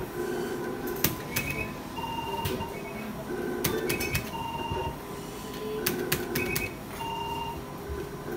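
Electronic bingo machine sounding its game effects: short electronic beeps and chimes at a few set pitches, repeating about every half second to second as balls are drawn, with sharp clicks now and then.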